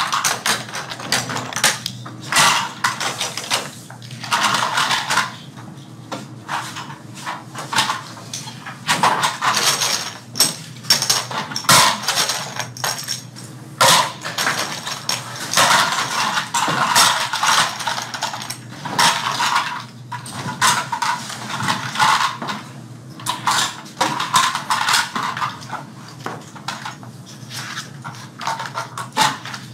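Small hard parts clattering and clicking irregularly as toy airplanes are put together by hand, with many overlapping rattles and knocks.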